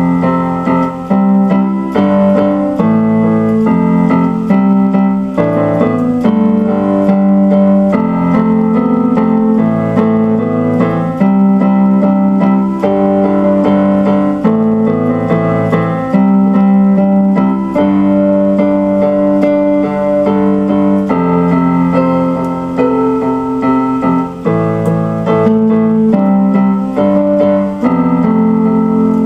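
Instrumental keyboard music with electric piano, chords changing every second or two.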